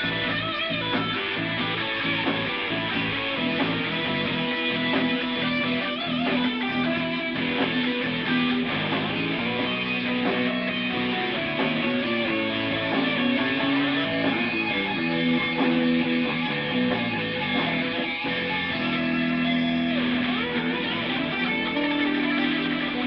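Semi-hollow-body electric guitar being played without a break: chords and single notes ringing on, changing every second or so.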